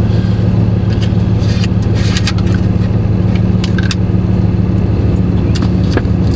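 Pickup truck engine idling steadily, heard from inside the cab as a constant low hum. Over it come a few light clicks and scrapes from a metal spoon in a plastic yogurt cup.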